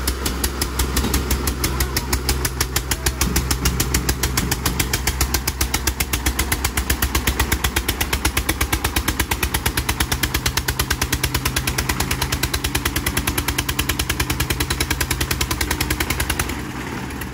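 Diesel tractor engines working hard under heavy load in a tug-of-war. The nearer engine's exhaust beats in a steady, even pulse about six times a second, and the level drops about a second before the end.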